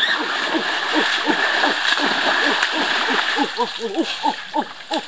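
A chorus of many animal calls: short, falling notes overlapping several times a second, over a steady rush of water.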